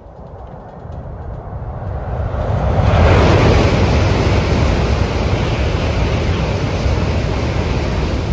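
N700-series Shinkansen train crossing a railway bridge at close range: a rumble that builds over the first few seconds as the train approaches, then a loud, steady roar of wheels and bridge deck as the cars run past.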